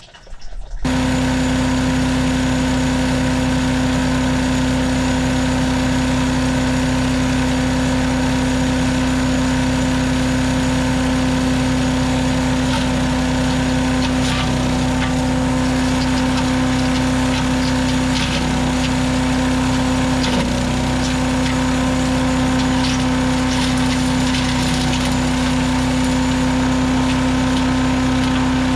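Small gasoline engine running at a steady speed with an even, unchanging drone, cutting in abruptly about a second in.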